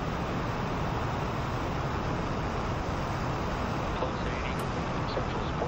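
NASA Space Launch System five-segment solid rocket booster burning in a static test firing, a steady, unbroken noise heaviest in the bass.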